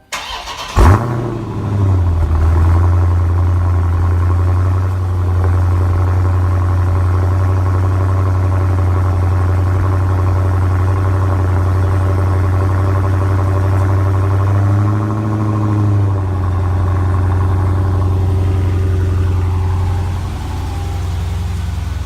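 Dodge Challenger Scat Pack's 6.4-litre HEMI V8 on a cold start through the stock exhaust: the starter cranks, the engine catches with a sharp flare about a second in, then settles into a steady high cold-start idle. The idle briefly rises and falls about fifteen seconds in, and near the end it drops to a lower, quieter idle as the fast idle comes down.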